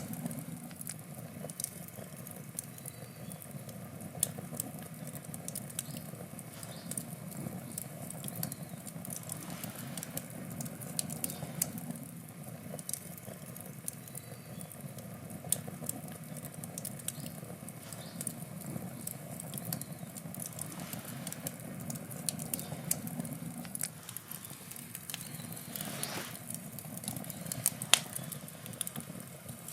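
Wood campfire burning, with steady crackling and frequent sharp pops from the burning wood over a low, even rumble of the flames. There is one louder pop near the end.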